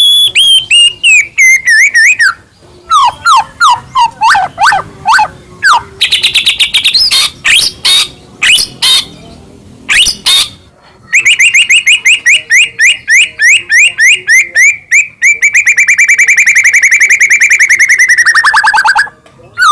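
White-rumped shama singing loudly in a varied song: falling whistled phrases, then harsher chirps and clicks, then a long fast trill of repeated notes lasting several seconds that drops in pitch at its end, with a short pause just before the song picks up again.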